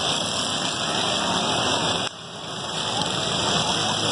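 Several lawn mower engines running together in a demolition derby heat, a dense steady mechanical noise. About halfway through the level drops suddenly, then builds back up.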